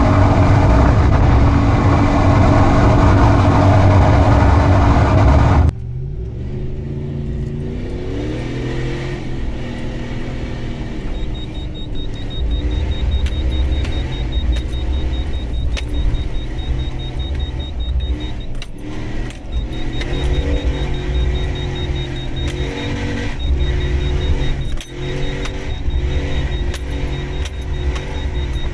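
Toyota 4Runner's 4.7-litre V8 revving hard with the tyres spinning in sand, close and loud under a dense rush of noise. About six seconds in, the sound cuts abruptly to the engine heard from farther off, revving up and down again and again as the truck spins circles in the sand.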